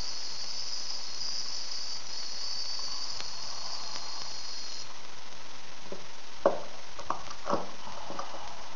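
High-voltage spark gap, fed by a ZVS driver and flyback transformer, arcing with a steady high hiss that cuts off about five seconds in. A few sharp clicks follow as the spark-gap hardware is handled, the loudest about six and a half seconds in.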